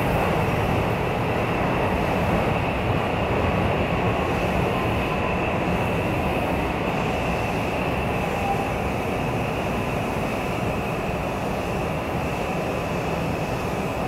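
JR West 323 series electric train running, heard from inside the car: a steady rumble of wheels and motors with a high, even tone over it, gradually getting quieter.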